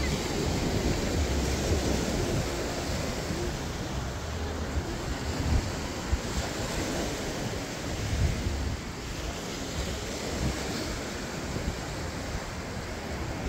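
Surf washing onto the beach and steady wind, with gusts buffeting the microphone in uneven low rumbles.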